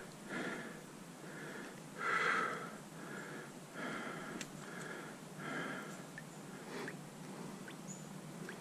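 A person breathing through the nose, short noisy breaths about once a second, the loudest about two seconds in, with a few faint clicks.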